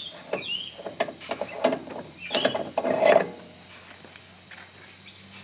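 Metal clicking and scraping as the breech cap of a jet engine's cartridge starter is turned and pulled off the nose of the engine: a run of small clicks, the loudest clatter about three seconds in, then quieter.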